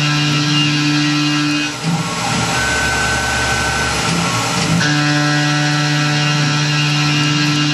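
Tormach PCNC 1100 CNC mill's spindle and end mill cutting aluminum, a steady, loud, tonal machining hum. Its lowest steady tones drop out for about three seconds in the middle and then return.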